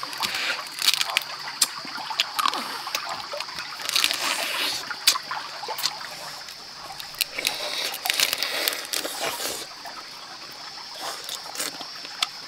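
Close-up eating sounds: roasted crab being bitten, cracked and chewed, in irregular wet, crunchy bursts with small clicks of shell. A steady high-pitched whine runs underneath.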